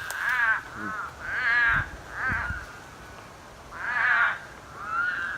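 A series of about five wavering, bleat-like animal cries, each under a second long with short gaps between. They sound like sheep, and the listeners wonder whether frogs in the wet ground are making them.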